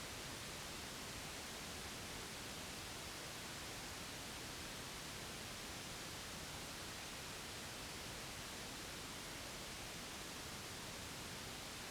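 Steady white noise for soothing a baby: an even hiss that does not change.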